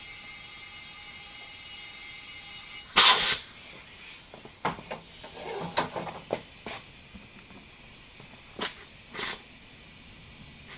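Compressed air hissing in short bursts from an air hose feeding a tubeless wood-splitter tire through its valve stem. One loud hiss comes about three seconds in, then several shorter hisses and clicks, and two brief hisses near the end. A steady hum with a few fixed tones runs underneath for the first three seconds, then stops.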